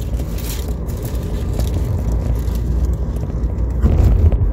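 Steady low rumble of a car cabin, with close crinkling of a paper burger wrapper while eating. The crinkling is loudest briefly near the end.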